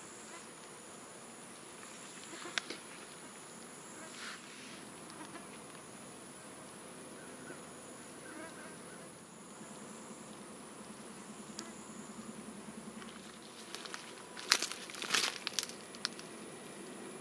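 Steady high-pitched insect drone with insects buzzing, one buzzing close by for a few seconds past the middle. Near the end comes a burst of loud rustling and knocks as the shot rabbit is handled close to the microphone.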